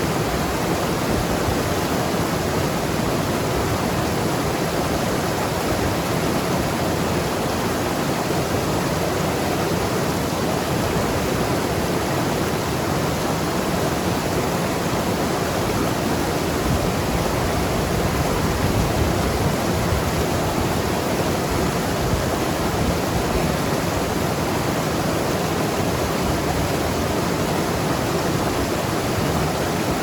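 Mountain river rushing and gurgling over rocks, a steady unbroken sound of flowing water.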